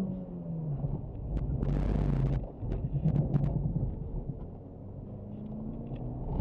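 Honda Civic's engine heard from inside the cabin during an autocross run, pulling and easing off with tyre and road noise; a hissing burst comes about two seconds in, with scattered sharp clicks. The engine drops away around a gear change about four seconds in and revs up again near the end.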